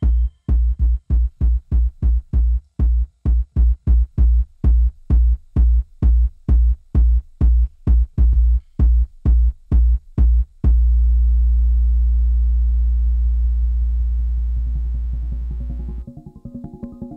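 Electronic music: a deep bass drum-machine beat hitting about two and a half times a second. About ten seconds in it gives way to one long held deep synthesizer bass note that fades and cuts off near sixteen seconds, and a quieter, quick synthesizer pattern follows.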